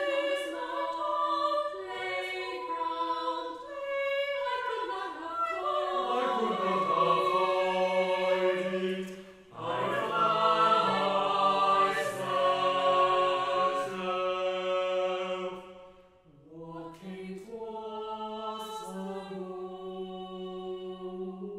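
Twelve-voice SATB a cappella choir singing slow, sustained chords, with a short break about halfway through. Near the end the voices stop briefly, then come back in on a softer held chord.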